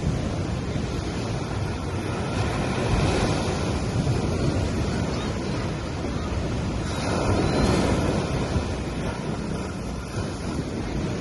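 Small waves breaking and washing up a sandy beach: a continuous rush of surf that swells twice as waves come in.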